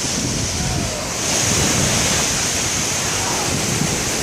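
Ocean surf washing onto a beach, with a swell of breaking water about a second in, and wind buffeting the microphone.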